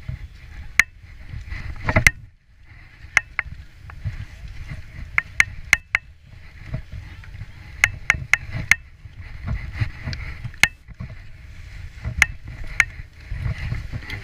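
Skis sliding and scraping over packed snow as a skier shuffles forward in a lift line, with many sharp, irregular clicks from ski poles and skis knocking together. A low wind rumble sits on the microphone underneath.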